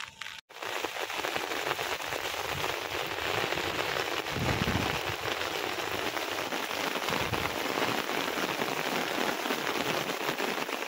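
Pouring rain falling on open water and wet ground: a dense, steady hiss of countless drops.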